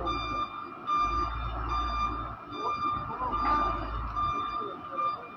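A machine's electronic warning beeper sounding in short, evenly repeated beeps, about one every three-quarters of a second, over a low rumble.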